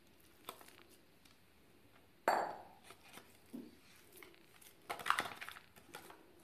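A silicone spatula pressing and scraping thick chocolate fudge mixture into a paper-lined glass baking dish, with light taps and scrapes throughout. A sharp knock against the glass dish about two seconds in, and a quick cluster of taps a little before the end.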